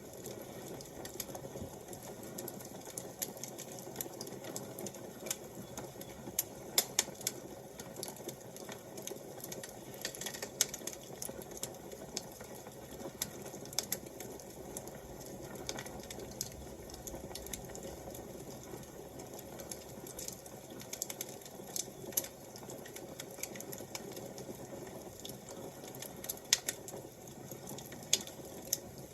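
Wood fire crackling: irregular sharp pops and snaps over a steady soft hiss.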